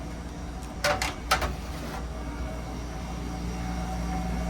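Steady low drone of a car ferry under way, with two short sharp clatters about a second in.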